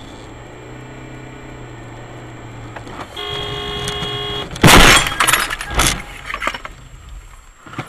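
Car cabin hum, then a car horn blares for about a second and a half as a car skids across the road ahead. A loud collision crash follows, with several more crunching, breaking impacts over the next two seconds.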